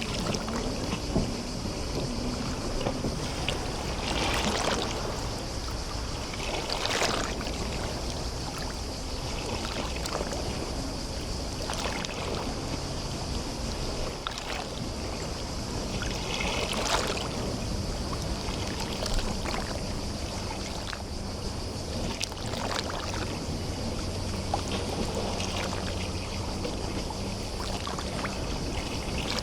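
Small sea waves lapping and splashing against the shore every few seconds, over a steady hiss.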